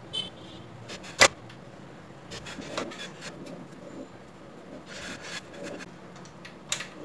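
Plastic cover and sensor levers of a Canon photocopier being handled and worked by hand while the glued repair is tested. There is a brief squeak at the start, one sharp plastic click about a second in, then scattered light clicks and rubbing.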